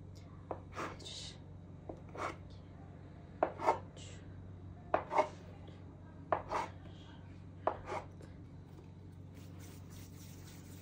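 Plastic dough scraper chopping a rope of dough into small pieces, striking the tabletop as it cuts: sharp taps in pairs, about every second and a half.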